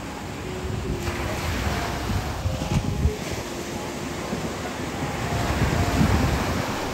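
Surf washing onto a sandy beach, with wind buffeting the microphone in gusts.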